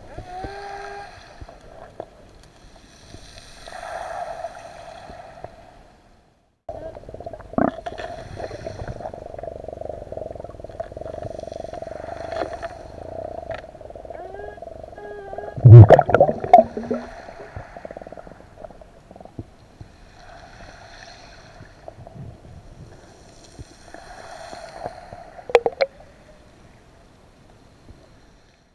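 Underwater sound of a diver: bursts of exhaled breath bubbles about every four seconds over a steady hum, with a loud cluster of knocks and clatter a little past halfway.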